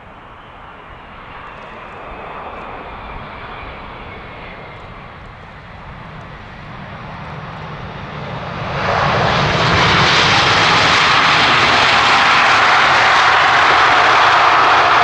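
Jet engines of a landing wide-body airliner, growing louder with a faint falling whine, then jumping suddenly to a loud, steady roar about nine seconds in.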